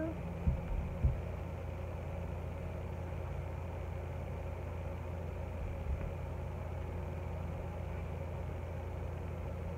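A steady low background hum, with a few short soft thumps about half a second and a second in and again near six seconds.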